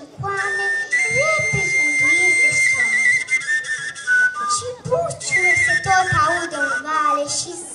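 A girl singing a Romanian folk song, accompanied by a high folk flute that holds a long steady note with trills about a second in.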